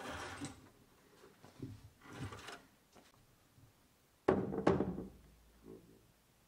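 Twine rubbing as it is pulled and knotted over chair-seat coil springs, then a hand pressing down on the tied springs: two springy thumps half a second apart, each with a short ringing twang, and a fainter ring about a second later.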